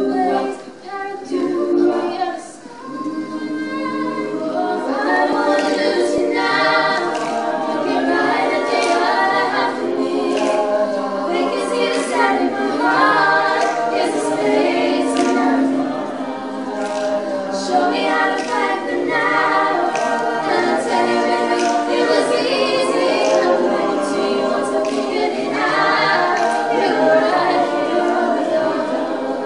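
Mixed group of men's and women's voices singing together in harmony, a cappella.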